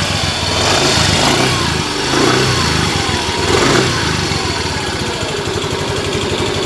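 Motorcycle engine running just after starting, revved up and down a few times, then settling to a steady idle about four and a half seconds in.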